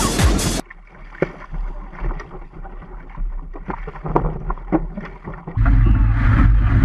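Music cuts off after a moment. Water slapping and splashing against a sailboat's hull follows, with scattered small knocks. Near the end a loud wind rumble on the microphone of a camera mounted on an outrigger canoe takes over, with water rushing.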